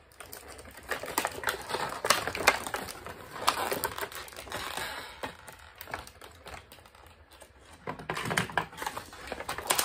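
Clear moulded plastic packaging being handled and pulled apart, giving irregular crinkling and clicking.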